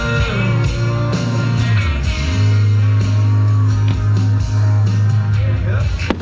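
Music with singing, guitar and a strong, steady bass line. A sharp click comes near the end.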